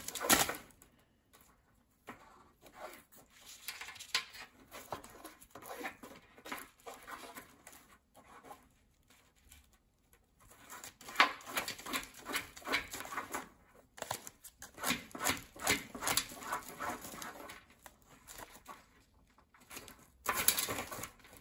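African grey parrot scratching and digging through seed mix on newspaper at the cage bottom: irregular bouts of crinkling paper and scattering seeds, with short pauses between them.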